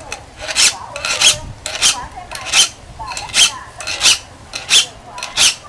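A hand file drawn across the teeth of a saw to sharpen it, about eight even strokes, roughly one every three-quarters of a second.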